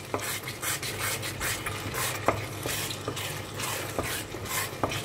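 Wooden spatula stirring a thick tomato and onion sauce in a metal pot, in repeated short scraping strokes, with a few sharp knocks of the spatula against the pot.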